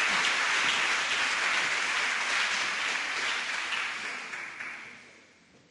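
Audience applauding, a steady clapping that fades away over the last second or two.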